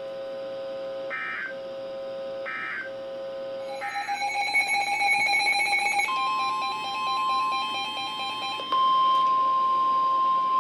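Emergency alert tones. A steady electronic tone is broken by a short higher beep about every second and a half, then several alert signals sound over each other. From about eight and a half seconds in, the steady single-pitch NOAA Weather Radio 1050 Hz warning alarm tone sounds alone and louder, signalling that a new warning is about to be read.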